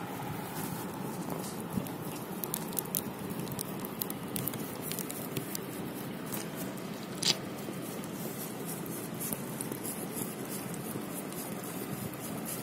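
A whelping dog licking, a run of small wet smacks and clicks, with one sharper click about seven seconds in.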